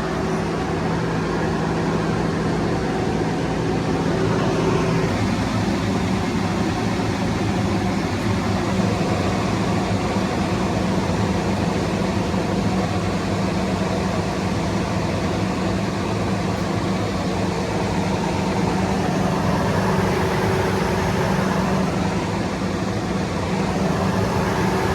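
An engine running steadily, its pitch shifting slightly about five seconds in.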